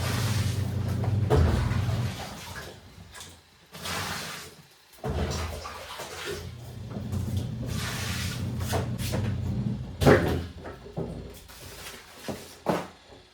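Washing machine motor humming as it churns water and clothes, cutting out about two seconds in and starting again about five seconds in, with splashing and clattering handling noises and a sharp knock about ten seconds in.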